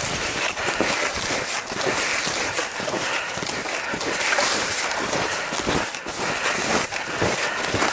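Footsteps crunching in deep snow at a steady walking pace.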